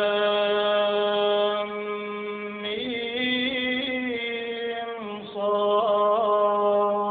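A man's solo voice chanting Quran recitation in the melodic prayer style. He holds long, drawn-out notes on one pitch and changes note twice, with small quick turns of pitch in the later note.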